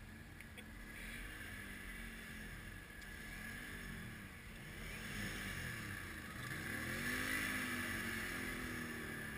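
ATV engines revving up and down again and again, the pitch sweeping up and falling back repeatedly, louder toward the end.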